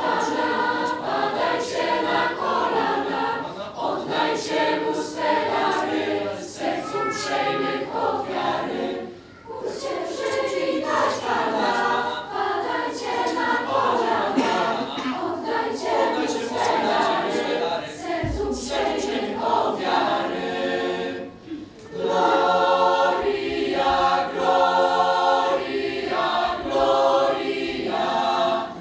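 Mixed youth choir of boys and girls singing unaccompanied, in long phrases broken by two short pauses.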